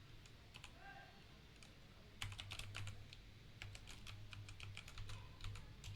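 Typing on a Kreo computer keyboard: faint, scattered keystrokes, then a quicker run of key presses from about two seconds in.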